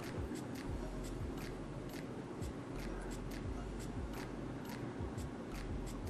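Pencil scratching in short strokes across a bald cap as a trim line is marked around the ear: a long run of light, sharp scratches, about three a second.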